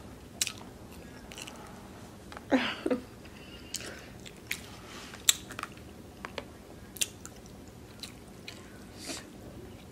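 A person chewing food with the mouth close to the microphone: scattered soft, wet smacking clicks. About two and a half seconds in there is a short hum of the voice.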